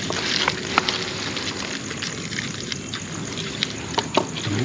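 Paper food wrappers and plastic bags rustling and crinkling in people's hands, with scattered small clicks over a steady hiss.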